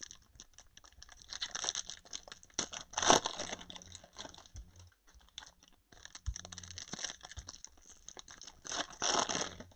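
Foil wrapper of a trading-card pack crinkling and tearing as it is opened, in irregular rustling bursts with a sharper crackle about three seconds in.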